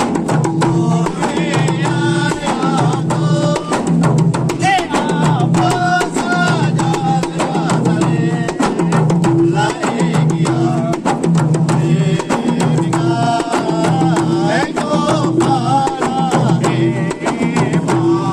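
Hadrah music: hand-beaten rebana frame drums keeping a steady interlocking rhythm under a wavering sung melody.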